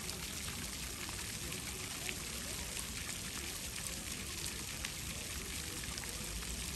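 Ground-level plaza fountain jets splashing onto wet paving: a steady hiss of falling water with many small spatters and drips.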